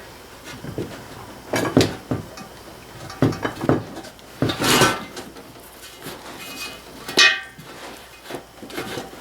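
Irregular metal clanks, knocks and short scrapes as a tractor tire's inner tube and valve stem are worked out through the rim, with a louder scrape about five seconds in and another after seven seconds.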